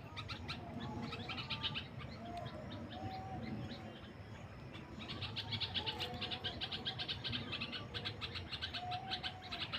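Several wild birds chirping and calling together: quick runs of high chirps that grow busier about halfway through, with short lower notes scattered among them.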